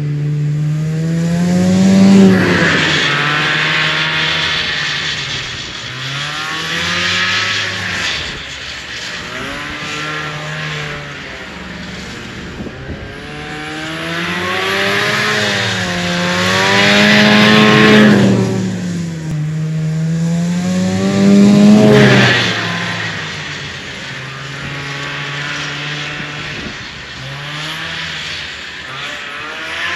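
1974 Arctic Cat Lynx snowmobile's fan-cooled 340 two-stroke engine revving up and down as the sled is ridden, with the loudest surges about two seconds in, around the middle and again a few seconds later.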